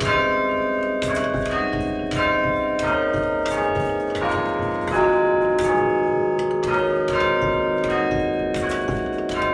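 Chime of thirteen Taylor-cast church bells (tenor about 1.5 tonnes, in C) sounding single notes one after another, roughly one to two strikes a second. Each bell keeps ringing and humming under the next strike.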